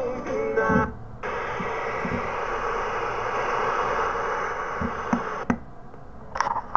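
An Android-robot-shaped portable speaker: a song plays for the first second, then the speaker gives a steady static hiss for about four seconds that cuts off suddenly. A few sharp clicks follow near the end.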